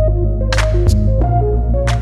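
Background music with a steady bass, held tones and short percussion hits.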